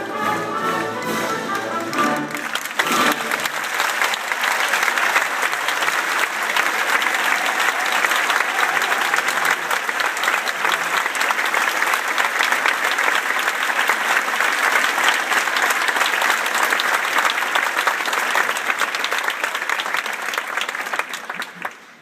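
An orchestra plays the closing notes of a ballet number, and about two and a half seconds in a theatre audience breaks into applause. The clapping goes on steadily and dies away near the end.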